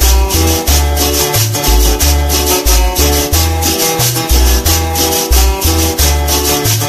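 Latin dance song playing: a bouncing bass line and sustained keyboard chords under an even shaker-and-scraper rhythm of about four strokes a second.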